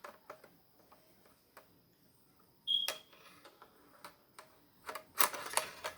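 Small clicks and knocks of a scope mount being handled and fitted onto the rail of a Crosman Pumpmaster 760 BB gun. One sharp click with a brief ring comes about halfway, and a quick cluster of clattering knocks near the end.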